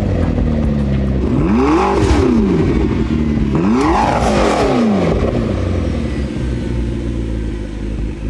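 Car engine revving up and back down twice over a steady low drone, the pitch climbing and falling each time.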